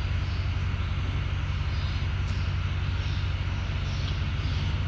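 Steady low mechanical drone with an even hum and a background hiss, unchanging throughout.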